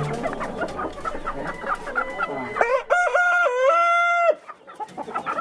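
Chickens clucking, with a rooster crowing once about two and a half seconds in, a stepped crow lasting under two seconds.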